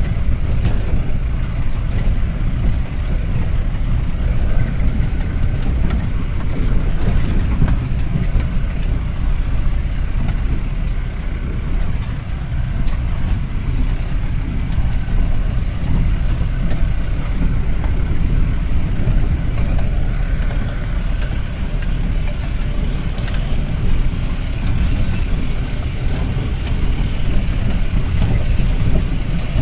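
Off-road jeep driving slowly over a rough, rocky dirt track: a steady low engine and road rumble, with scattered knocks and rattles from the body as it goes over the bumps.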